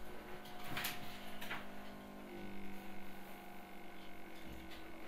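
Quiet room tone with a steady low hum, and two faint clicks about a second and a second and a half in.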